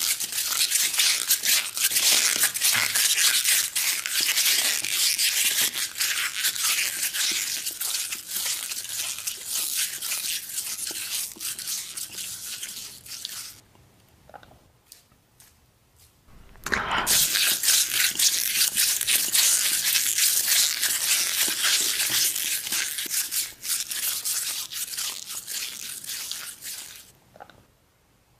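Close-miked crunchy chewing, a dense crackle in the high end, in two long bouts. The first fades out about 13 seconds in; after a pause of about three seconds the second starts loud again and fades near the end.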